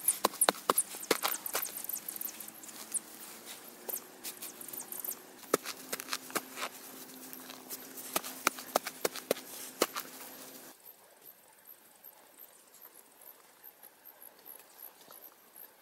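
Grass clumps being torn out of the soil by hand: a fast, irregular run of sharp snaps and crackles as the roots break, stopping abruptly about eleven seconds in. After that, only soft, evenly spaced footsteps on grass.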